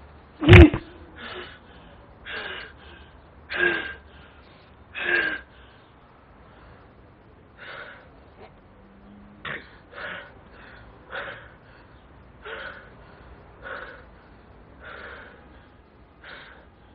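A person breathing hard: short gasping breaths in a steady rhythm, about one every second and a bit, with one much louder, sharper gasp about half a second in.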